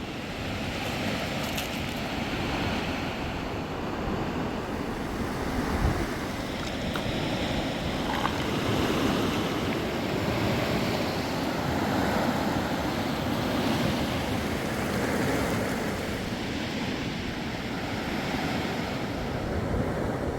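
Rushing river water with wind on the microphone, a steady, swelling noise. There is a single knock about six seconds in.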